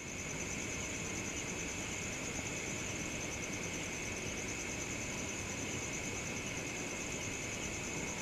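Steady background ambience: an even hiss with two constant high-pitched tones, the upper one shimmering.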